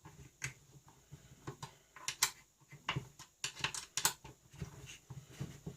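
Allen key tightening the bolt that holds the front guard of a Parkside disc sander: a string of small, irregular clicks and taps of metal as the key is turned and repositioned.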